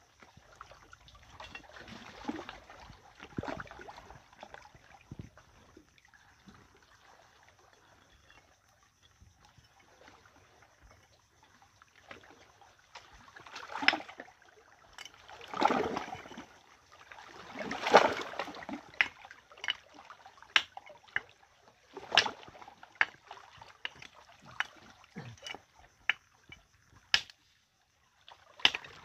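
Hand-held stone knocking and cracking grilled sea snail shells against rock. In the first half there are only faint scrapes as the shells are pushed about with sticks. From about the middle onward comes a string of sharp knocks, with a few louder cracking crunches among them as the shells break open.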